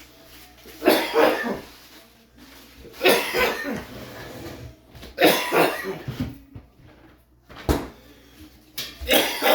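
A person coughing repeatedly: five coughing bouts about two seconds apart, the fourth a single short cough.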